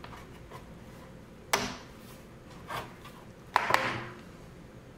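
Bottom cover of a laptop being pried off its chassis, its clips snapping loose: a sharp click about a second and a half in, a softer one, then a louder, longer clatter as the panel comes away.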